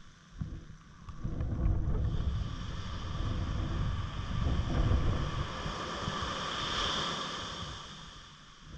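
Wind buffeting the microphone in gusts over the wash of surf. A wave swells to its loudest near the end, then fades.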